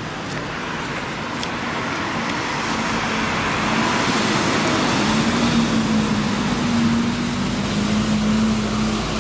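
Street traffic on a wet road, with steady tyre hiss. A double-decker bus's engine hum, wavering slightly, grows louder from about three seconds in as the traffic builds.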